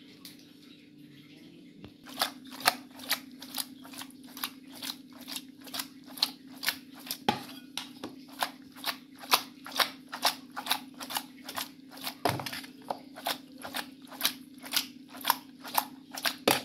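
Hands squeezing and mixing raw prawns with turmeric and salt in a steel bowl, a regular wet squish about two or three times a second that starts about two seconds in. A steady low hum runs underneath.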